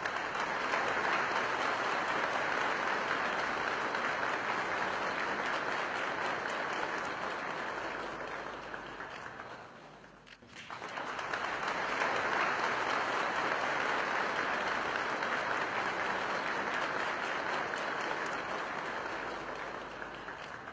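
Applause: a dense round of clapping that fades out just before ten seconds in, then builds again and runs on at the same strength.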